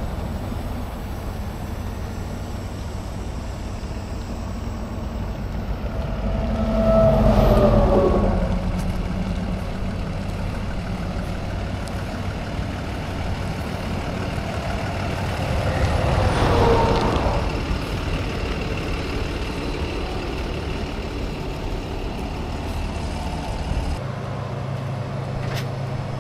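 Heavy diesel truck engine idling with a steady low rumble, while highway traffic passes twice, swelling louder about a third and two thirds of the way through with a falling pitch. Near the end the rumble changes to a steadier hum.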